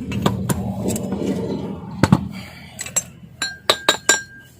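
Small metal parts of a Butterfly sewing machine's rotary-hook assembly clicking and clinking together as they are handled and fitted. In the second half come several sharp, separate clinks, some with a brief ring. A low hum under the first half fades out.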